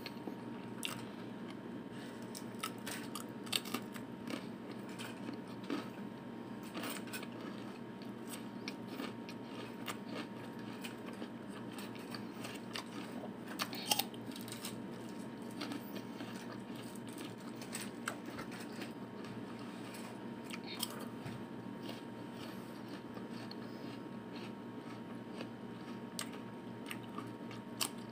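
Close-up eating sounds: biting into and chewing apple slices, with scattered faint crunches and one sharper crunch about halfway through, over a steady faint hum.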